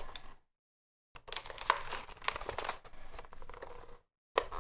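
Crinkling, rustling handling noise with small clicks, in two stretches that each cut off suddenly into dead silence, as the plastic toy transformation belt is handled.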